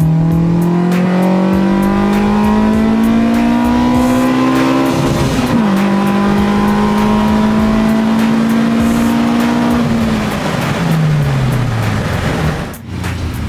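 Nissan SR20VE Neo VVL four-cylinder engine pulling hard under throttle. Its pitch climbs steadily for about five seconds, drops sharply at a gear change, then climbs slowly again before falling away as the throttle eases off near the end.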